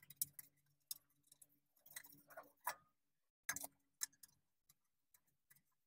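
Faint, scattered metal clicks and taps as the steel brake splash guard of a Toyota Camry is handled and set against the front wheel hub, dying away after about four seconds.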